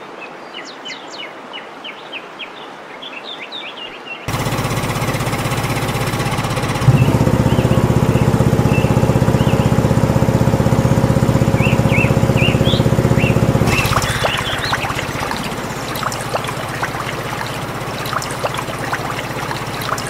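Birds chirping, then a miniature water pump model running: a sudden hiss starts about four seconds in, and a steady engine-like hum sits over it from about seven seconds in until about fourteen seconds. The hum then gives way to a splashing, trickling water noise with small clicks.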